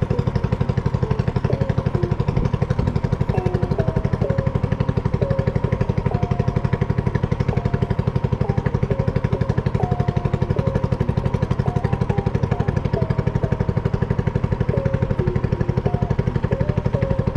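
An engine running steadily at constant speed with a fast, even pulse.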